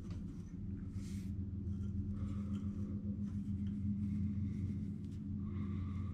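Steady low hum in the room, with faint soft rustles as fingers pinch and position a bunch of coyote tail hair on a jig hook in the vise.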